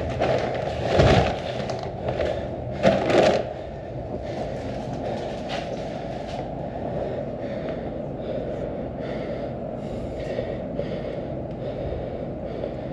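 Two loud thumps, about one and three seconds in, then a steady low rumble with faint small ticks.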